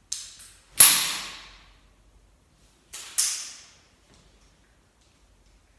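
SwingRite hinged swing-trainer club clicking sharply as it is swung: a pair of clicks about a second in, the second the loudest, and another pair about three seconds in, each ringing on in a bare tiled room.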